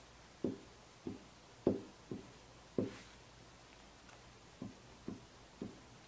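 Heated nakhwa iron dabbing and stroking on hanji paper: about eight soft, dull taps at an uneven pace, with a pause of over a second in the middle.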